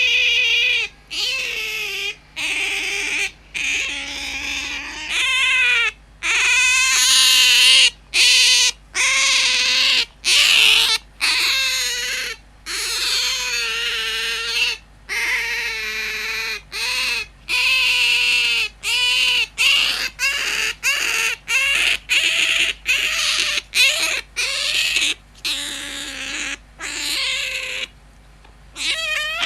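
Pet otter squeaking: a long series of high, wavering squeals, one after another with short breaks, about one a second.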